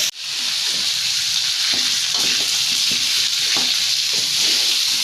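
Boiled chicken feet and bones sizzling in hot oil with a spice paste, stirred, with occasional short scrapes and knocks against the pan over a steady frying hiss.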